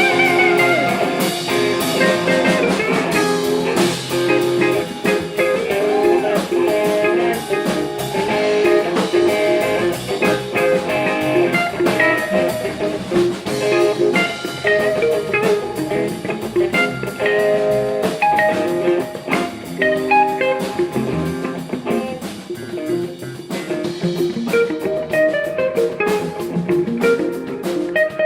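Blues-style music with guitar leading over a drum kit, playing continuously.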